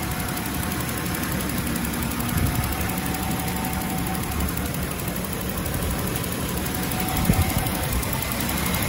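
Jaguar XJS 4.0-litre straight-six engine idling steadily, warmed up after a short drive.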